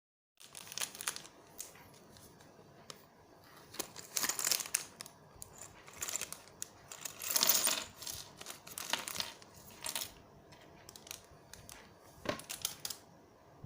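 Small plastic building-brick pieces being handled: irregular sharp clicks and rattles, with several longer crinkling rustles of a plastic bag, the loudest a little past the middle.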